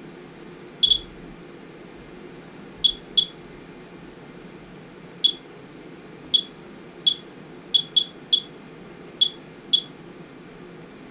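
Geiger counter's chirper sounding individual counts: about eleven short, high beeps at irregular, random intervals, some in quick pairs, over a steady low hum. The counts come from a rain sample that the owner believes is radioactive.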